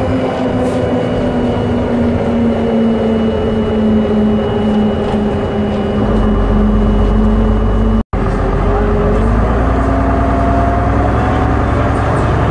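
MCW Metrobus engine and transmission heard from inside the upper deck while the bus is moving: a steady pitched whine sinks slowly, and a deeper rumble joins about halfway. After a brief dropout in the sound about eight seconds in, the whine climbs in pitch again.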